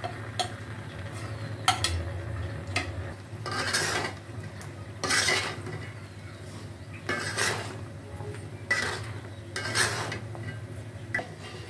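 A flat spatula stirring jujubes and ground spices through syrup in a pan, in about five scraping strokes against the pan, with a few sharp clicks of the spatula on the pan.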